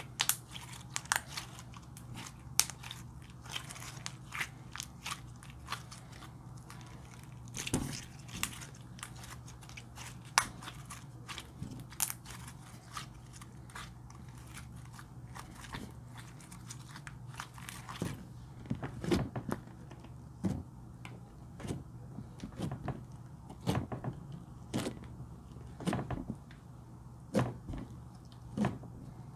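Slime being squeezed and stretched by hand, giving irregular sticky clicks and crackles. In the second half the slime is pressed flat under the fingertips, and the pops come fuller and deeper.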